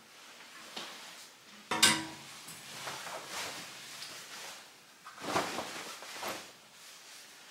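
Clothes hangers clacking and clinking against a clothes rack, with coat fabric rustling as garments are taken down and hung up. The sharpest clack comes about two seconds in.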